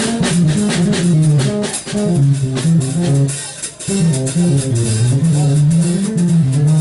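Live jazz: a keytar plays a low, stepping bass line while the drummer keeps time on the cymbals, with a short break in the line just before the middle.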